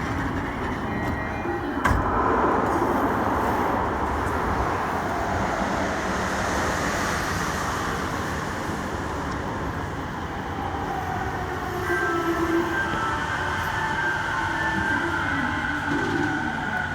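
Subway train running through a tunnel, heard from inside the car: steady wheel and track rumble, with a sharp knock about two seconds in. About twelve seconds in, a whining tone from the traction motors or wheels joins the rumble.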